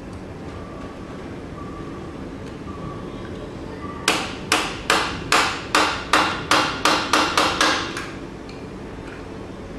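About a dozen sharp hammer blows, quickening toward the end, each ringing briefly: the motorcycle's steering head bearing adjuster being tapped tighter.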